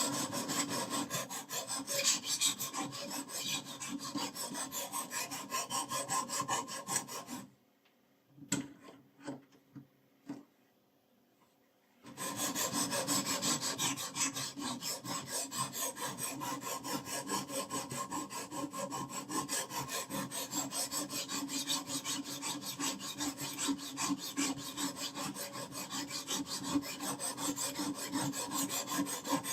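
Knife blade being stroked over a sharpening stone, a continuous rasping scrape. About seven seconds in it stops for a few seconds, with a few light clicks, then carries on steadily.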